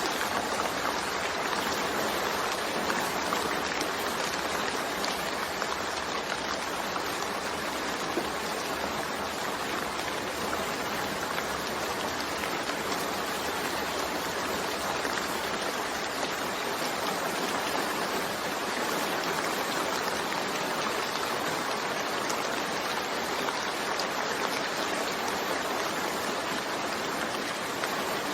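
Steady rain falling, an even hiss that holds without breaks.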